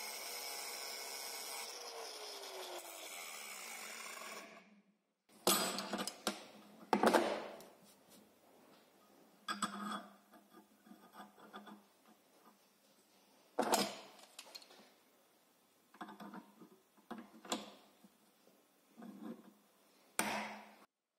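Angle grinder with a thin disc grinding a shallow fuller groove into a steel knife blank, a steady grinding hiss for about the first four seconds. After a break, scattered metal knocks, clinks and rubbing as the steel blank and the locking pliers are handled in the vise.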